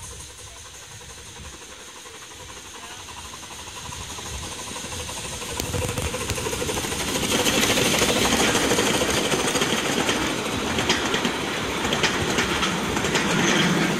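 Miniature 381 mm gauge steam train passing close by. It grows louder from about four seconds in, then its coaches roll past with a steady clatter of wheels on the track.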